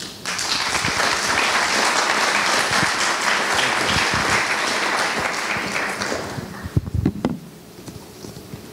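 Audience applauding, starting just after the beginning and fading out about six and a half seconds in. A few sharp knocks follow near the end.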